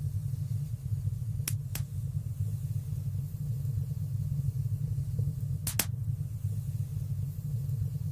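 Fireplace fire burning with a steady low rumble, crackling with sharp pops: two close together about a second and a half in and another near six seconds.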